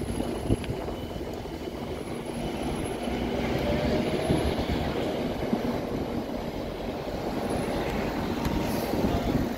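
Busy city road traffic: double-decker buses and taxis running past in a steady rumble of engines and tyres, with a car passing close near the end.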